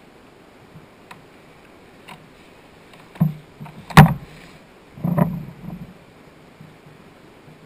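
A few sharp knocks and bumps on a kayak as the angler handles a small caught fish, rod and line: one knock about three seconds in, the loudest a second later, then a short cluster of bumps.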